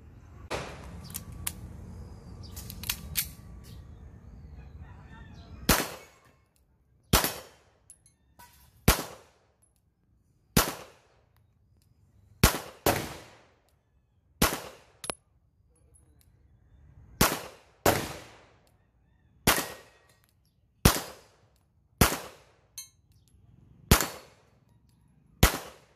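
Beretta M92FS 9mm pistol fired about fourteen times, single shots one to two seconds apart with a few quick pairs, each with a short ringing tail. The shots start about six seconds in, after a few faint clicks over a low rumble.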